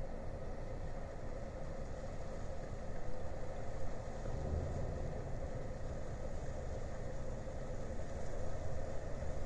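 Low, steady engine rumble with a constant hum from a Great Lakes freighter moving slowly through the ship canal.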